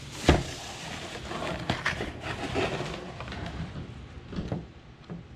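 Camera-kit packaging being handled and opened: rustling and scraping with scattered clicks and knocks, the sharpest a single loud click just after the start, then dying down near the end.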